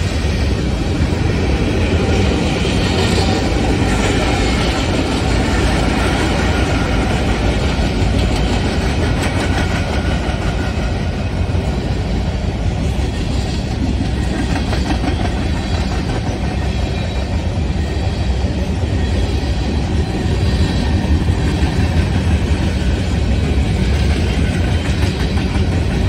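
Freight train of tank cars rolling past at close range: steady, unbroken noise of steel wheels running on the rails.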